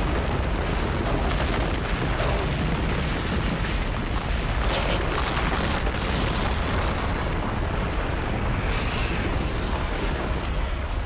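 Long, steady explosion sound effect: a deep, continuous rumble with noisy crackle over it, the designed sound of a planet-sized impact.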